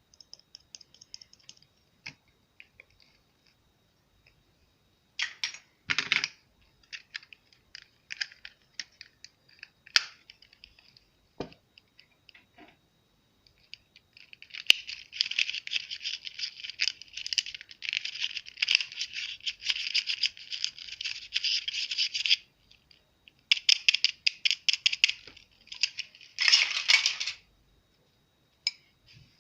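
Slime being worked by hand, crackling and popping with small sticky clicks. Scattered pops at first, then a long run of dense crackling from about halfway in, and two shorter crackling bursts near the end.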